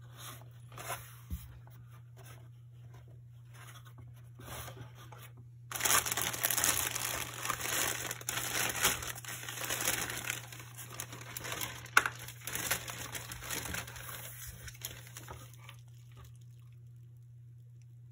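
Clear plastic packaging bag and bubble wrap crinkling as they are pulled open and handled: light rustles at first, then loud, dense crinkling from about six seconds in, with one sharp crackle midway, fading out near the end.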